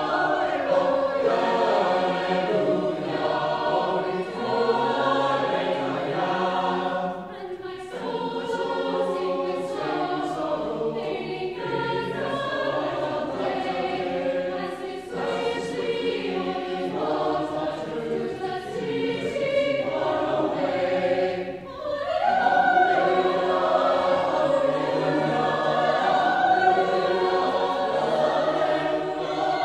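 Choir singing, laid over as background music, in long sustained phrases with brief breaks about seven and twenty-one seconds in.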